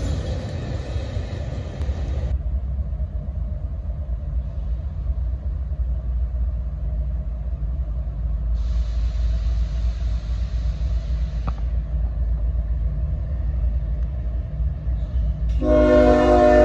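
Diesel-hauled freight train rumbling steadily. About a second before the end, a locomotive air horn starts blowing a loud multi-note chord.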